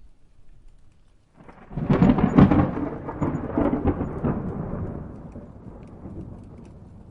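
Thunderclap: a sudden crackling crash about a second and a half in, rolling off into a rumble that fades slowly, over steady rain.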